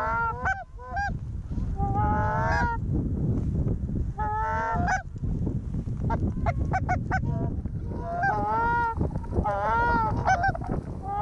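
Canada goose honks and clucks in repeated bursts, with a fast run of short clucks midway and more honking near the end.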